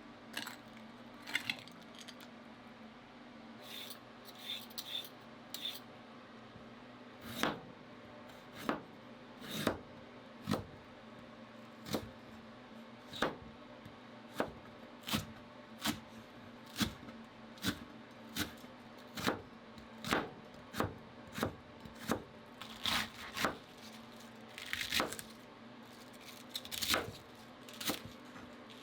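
A kitchen knife cutting vegetables on a cutting board, each stroke ending in a sharp knock on the board. The knocks are irregular in the first few seconds, then come steadily about once a second.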